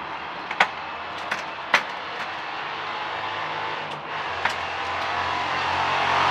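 A few sharp knocks in the first two seconds, over the steady sound of a motor vehicle that grows slowly louder, as if approaching.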